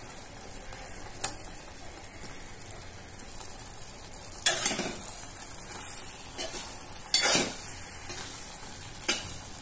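A metal ladle stirring thick spinach gravy with paneer cubes in a stainless-steel pot, with three louder scrapes of the ladle against the pot in the second half. A faint steady hiss of the simmering gravy runs underneath.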